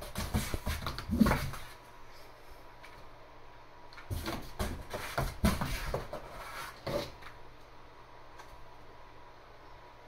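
A cat's paws scrabbling and thumping against the inside wall of a cardboard box as it leaps at a laser dot, in two bursts: one at the start and a longer one beginning about four seconds in.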